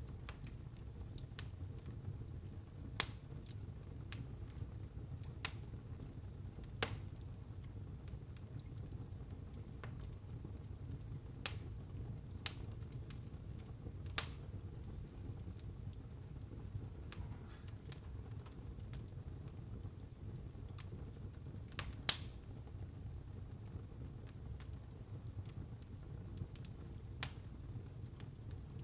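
Wood burning in a fireplace: a steady low rumble of the flames with scattered sharp crackles and pops, the loudest about 3, 7, 14 and 22 seconds in.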